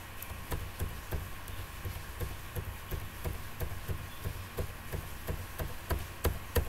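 Computer keyboard keys pressed over and over at a steady pace, about three clicks a second, each with a dull knock. These are repeated Ctrl+Z undo presses stepping the enlarged letter back to normal size.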